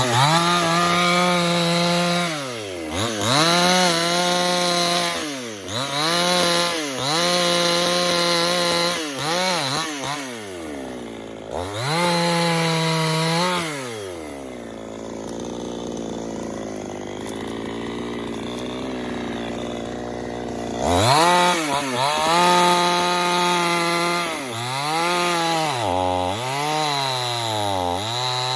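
Two-stroke chainsaw at full throttle, its pitch dipping and climbing back again and again as the throttle is released and reopened while bucking wood. About halfway through it drops to a quieter idle for several seconds, then revs up again, with quicker throttle blips near the end.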